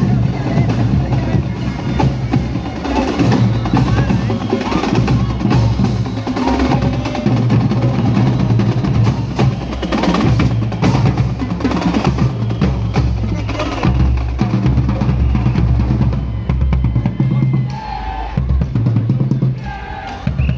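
Loud music with a strong bass line and busy drumming.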